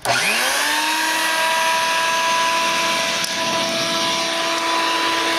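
Electric blower switched on to feed air to a charcoal furnace: its motor spins up with a quick rising whine, then runs steadily, a steady hum over a rush of air.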